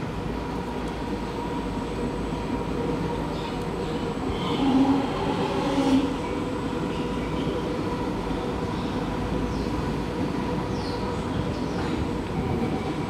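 Kawasaki–CRRC C151B electric metro train passing close by, with a steady rumble of wheels on rail and a steady hum, and two louder thumps about five and six seconds in.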